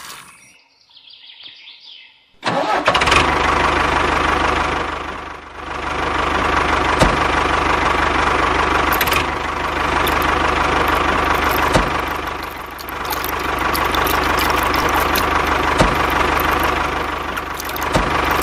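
Engine-like running sound of a toy model tractor. It starts abruptly about two seconds in and runs steadily, dipping briefly a few times.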